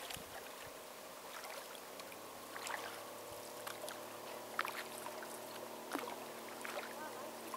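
Kayak paddle strokes in the water, with drips and small splashes every second or two over a steady wash of water along the kayak's hull, and a faint steady hum underneath.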